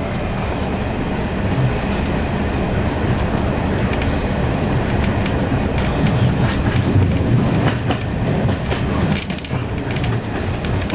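Train running along the line, heard from inside its cab: a steady low rumble with the wheels clicking over rail joints, the clicks coming in small groups around the middle and again near the end.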